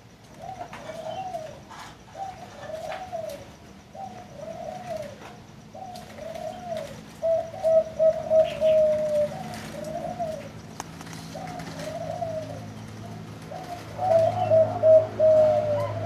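Zebra dove cooing: a steady series of short arched coos, about one a second, twice breaking into a louder, faster rolling run of notes, once about halfway and once near the end.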